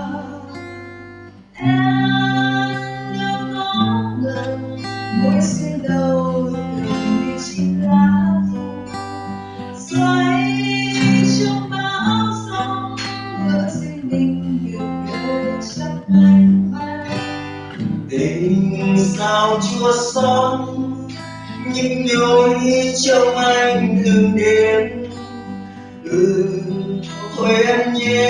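Acoustic guitar strummed in chords, with a voice singing along, picked up by a security camera's built-in microphone.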